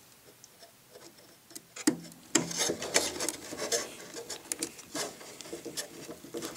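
Small hand screwdriver driving a servo mounting screw into wood, making irregular clicks and rasping scrapes that start about two seconds in.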